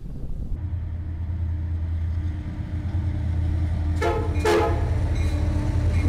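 Union Pacific diesel locomotives rumbling steadily as they pass, with two short horn blasts close together about four seconds in.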